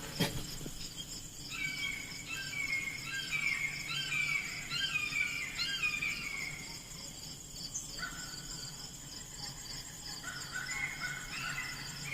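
Birds singing in repeated short falling phrases over a steady high insect trill, with a faint low hum underneath.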